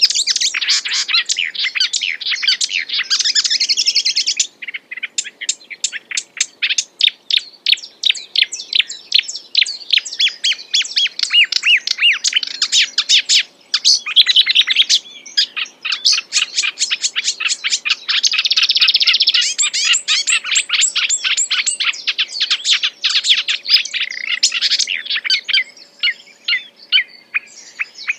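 A songbird singing vigorously in one long, nearly unbroken song of rapid, varied chirps and trills, the kind of full, varied song Indonesian bird keepers call 'gacor'.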